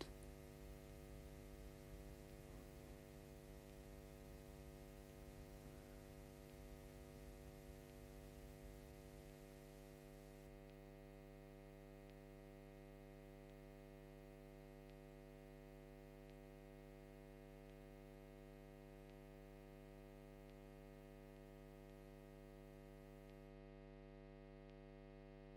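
Near silence: a faint, steady electrical hum, with a little hiss that drops away about ten seconds in.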